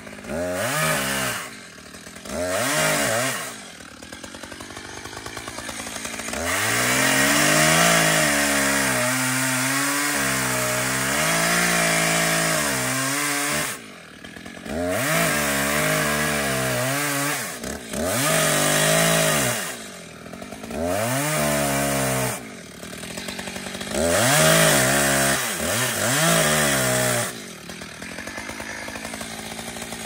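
Two-stroke gas chainsaw cutting into a tree trunk. It is throttled up to full revs in a series of bursts and drops back to idle between them, with one long cut of about seven seconds near the middle.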